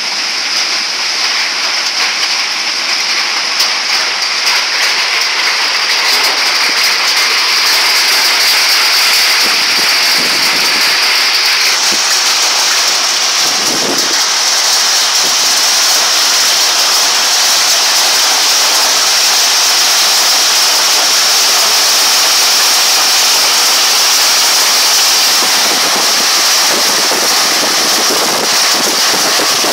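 Hailstorm: hailstones and heavy rain pelting down in a loud, dense, steady clatter.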